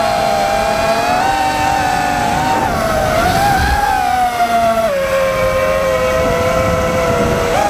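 FPV quadcopter's brushless motors and propellers whining, the pitch wavering with the throttle and dropping lower about five seconds in.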